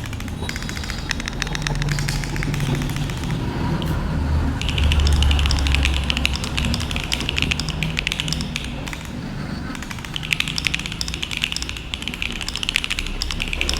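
Fast typing on a Monsgeek M5 CNC-aluminium mechanical keyboard with Akko Cream Yellow V3 linear switches and Infinikey Aether keycaps: a dense, continuous run of keystroke clacks. A low rumble swells underneath about a third of the way in.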